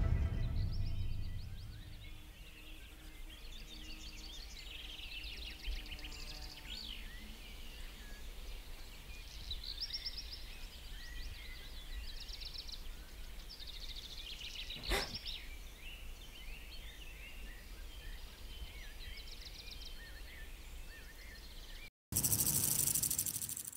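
Many small birds chirping and singing over a low steady rumble, with a single sharp click about two thirds of the way through. Near the end the birdsong cuts off and a sudden loud burst of noise follows for under two seconds.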